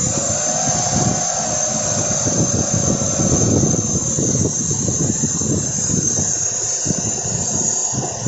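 Mitsubishi 4G63 inline-four engine idling with its air cleaner off, running evenly: the rough, hunting idle has been cured by a modification at the MAP sensor intake.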